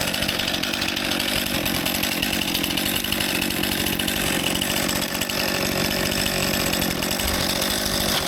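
Stihl MS261 C-M chainsaw engine running at a steady, unchanging speed.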